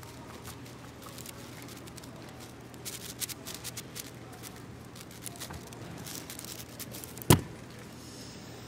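AoShi WRM 6x6 speedcube being turned, its layers giving scattered light clicks, then a single sharp slap about seven seconds in as the cube is set down and the Speed Stacks timer is stopped, ending the solve.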